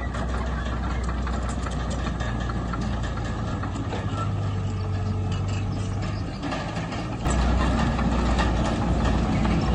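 Heavy diesel engine of an earthmoving machine running steadily, with a deep low hum. About seven seconds in it suddenly gets louder.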